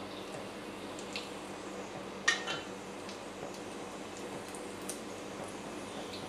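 A spoon scraping and clinking against an empty wok as oil is spread around the pan, with one sharp clink a little over two seconds in, over a faint steady hiss.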